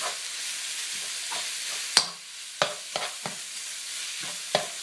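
Ground beef sizzling as it browns in a nonstick skillet, with a metal slotted spoon stirring and breaking up the meat. The spoon scrapes and knocks against the pan several times, sharpest about two seconds in.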